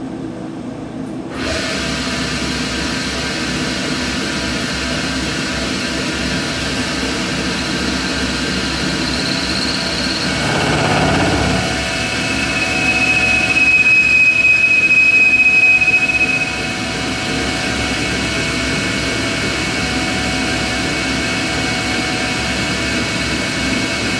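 Tormach CNC lathe spindle starting up about a second in and running steadily while a turning tool takes a light cut off the shoulder of a TTS shear hog tool holder. A high, steady whine from the cut is loudest for a few seconds around the middle.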